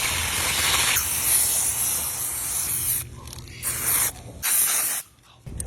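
Aerosol can spraying: one long hissing spray, then two short bursts.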